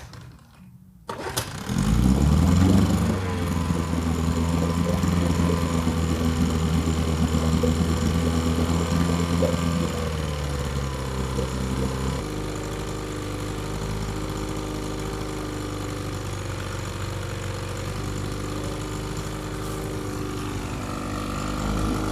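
1964 Johnson Seahorse 6 HP two-stroke outboard motor starting about two seconds in and running at a fast speed. About twelve seconds in it drops to a slower, steady idle.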